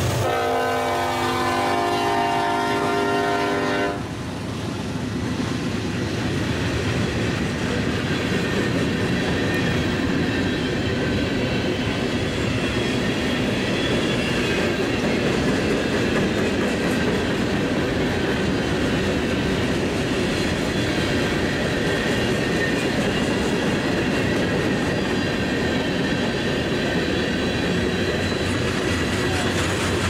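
Diesel freight train locomotive horn sounding one steady chord, which stops about four seconds in. After that comes the steady rush and clatter of freight cars rolling past on the rails.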